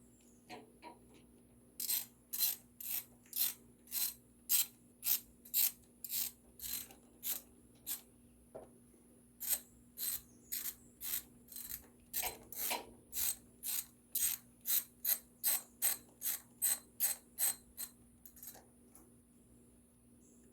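Ratchet wrench clicking, about two clicks a second, in two long runs with a short pause between them, as the ignition coil's mounting bolts on a Yamaha Raptor 700 ATV are tightened snug.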